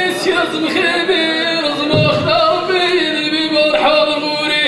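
A man chanting Amazigh sung poetry into a microphone, unaccompanied, drawing out long held notes that bend slowly in pitch.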